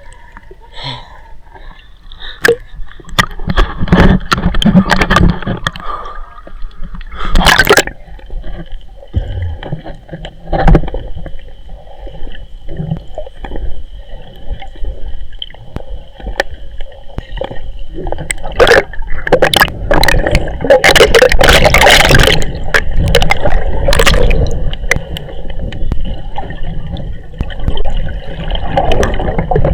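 River water splashing and gurgling close to the microphone, in irregular bursts, busiest about twenty seconds in.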